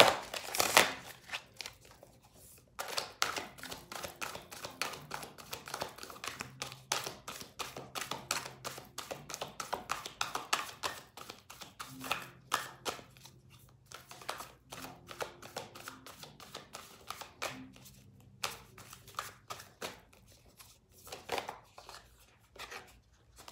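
Hand-shuffling of an oracle card deck: the cards flick and slap against each other in quick bursts of clicks, busiest in the first half, with short pauses between bursts.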